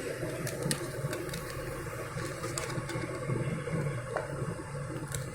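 Steady low background rumble with a few faint, light clicks as a DDR4 RAM module is handled and fitted into a laptop's memory slot.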